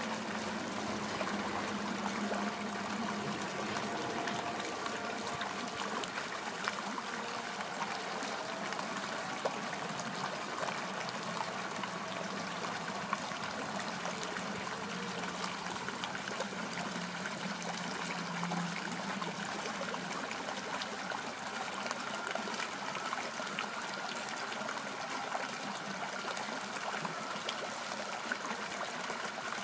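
Flowing water trickling and splashing steadily.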